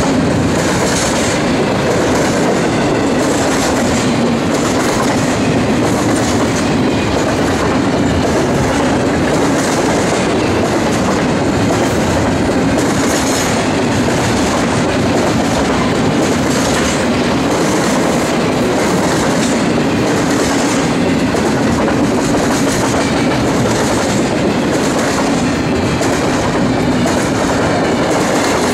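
Double-stack intermodal train's loaded well cars rolling past: a steady, loud rumble of steel wheels on rail, with a regular clickety-clack as each set of wheels passes.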